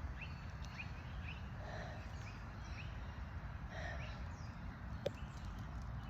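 Faint outdoor birdsong: short rising chirps repeating every half second or so, with a louder two-part call twice, about two and four seconds in, over a steady low rumble. A single sharp click about five seconds in.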